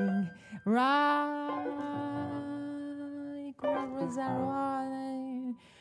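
Improvised vocal music: a woman's voice sings a long held note that scoops up into pitch and holds steady for about three seconds. A second, slightly lower note follows and wavers, with piano in the background.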